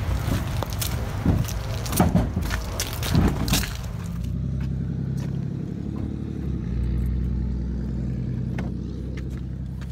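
A few sharp knocks and clatter, then from about four seconds in a vehicle engine running steadily at idle with a low, even hum.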